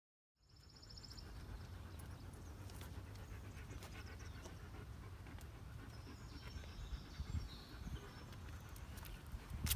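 German Shepherd panting, over a steady low rumble, with scattered light clicks and one sharp click near the end.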